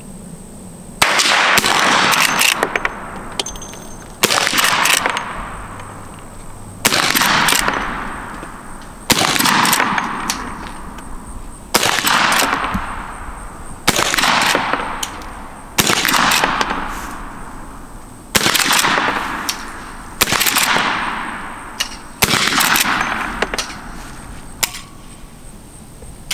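A string of about ten rifle shots, one every two to two and a half seconds, each with a long echo tail, from a Henry Big Boy lever-action rifle in .38 Special firing homemade black-powder loads with 156-grain cast lead bullets.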